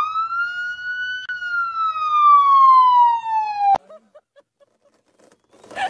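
A single siren wail that rises quickly, peaks about a second in, then falls slowly and cuts off suddenly near four seconds in.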